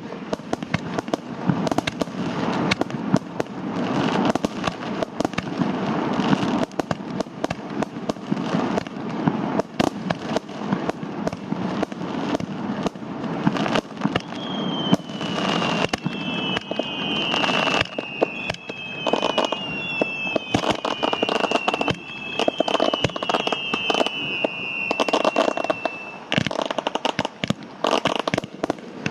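Aerial fireworks going off in a dense run of sharp bangs and crackles. From about halfway through, several whistling shells overlap, each whistle falling slightly in pitch, for about ten seconds.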